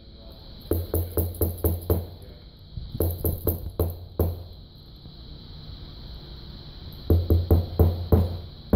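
Rubber bypass hose with a brass barb fitting in its end being banged down repeatedly on a rubber mat, forcing the hose over the barbs: three bursts of quick thuds, about four or five a second, with short pauses between.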